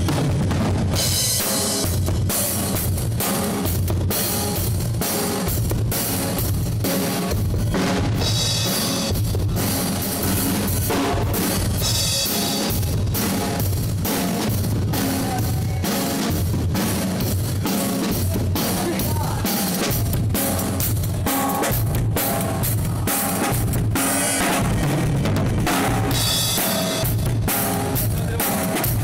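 Drum kit played steadily: bass drum and snare, with cymbal crashes every few seconds.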